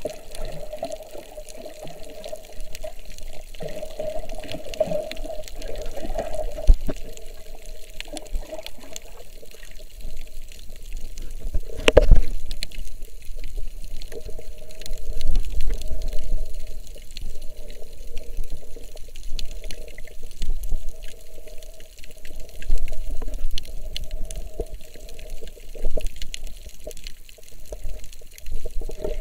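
Muffled underwater sound picked up by a submerged camera: water sloshing and bubbling as a snorkeler moves, with scattered small clicks and one sharp knock about twelve seconds in.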